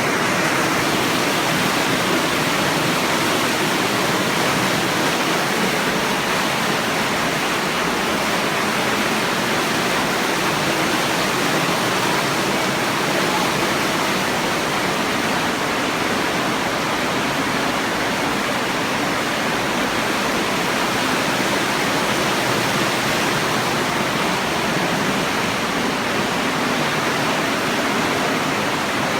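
Steady rush of water flowing through a sewer channel, an even, unbroken noise with no change in level.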